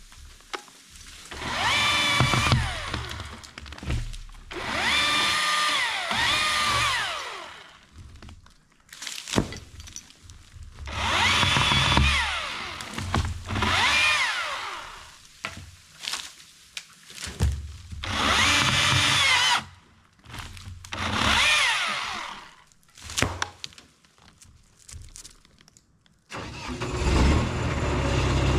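Electric chainsaw cutting wood in repeated bursts of a few seconds, its motor whine rising and falling as the trigger is squeezed and let go. There are a couple of sharp knocks between bursts, and a steadier run starts near the end.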